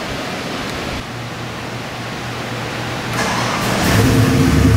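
Custom LS3-based 427 cubic-inch V8 with FiTech electronic fuel injection running on an engine test stand. A low steady hum comes in about a second in, and the engine sound grows clearly louder near the end.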